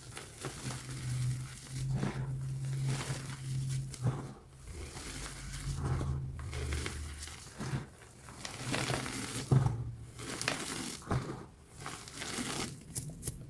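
Block of gym chalk being crunched: dry, crumbly crunching in bursts of a second or two with brief pauses between, and a sharp crack near the end.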